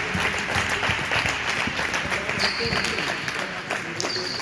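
Applause: many hands clapping together, steady throughout, with a few short high squeaks after about two and a half seconds.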